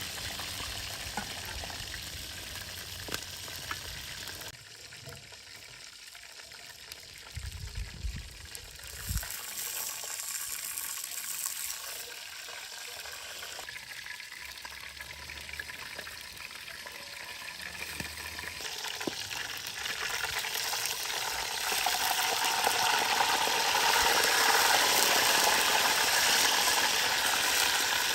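Food frying and sizzling in a pan, with the sound changing abruptly several times and growing louder over the last several seconds.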